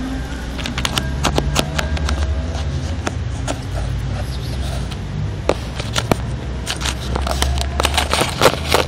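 Scratchy rustling and irregular sharp clicks of close handling, bunched thickly near the end, over a steady low rumble.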